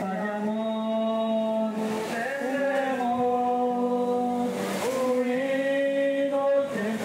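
Group of men singing a slow worship song, holding long notes that change every two to three seconds.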